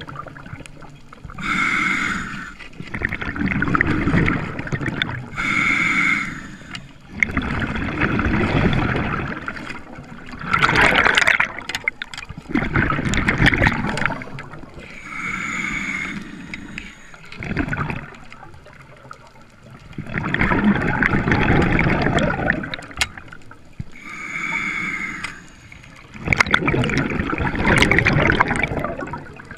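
A diver's breathing heard underwater: bubbling, gurgling exhalations alternating with shorter hissing inhalations, repeating every few seconds.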